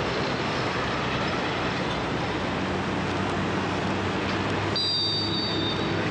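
Steady outdoor traffic noise with a low engine hum from passing road vehicles. About five seconds in there is a brief high shrill whistle-like tone.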